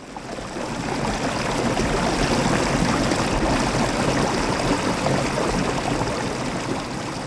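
Running stream water, fading in over the first second or two and beginning to fade out near the end.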